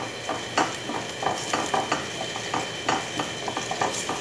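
A wooden spatula stirring and scraping around a stainless steel pot, with irregular light knocks a few times a second over a steady sizzle of food browning in oil.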